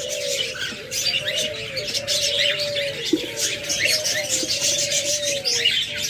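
Chorus of caged birds: doves cooing in long, steady low notes over many small birds chirping.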